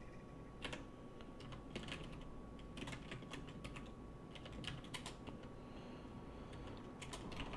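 Typing on a computer keyboard: faint, irregular keystrokes in short runs with brief pauses between them.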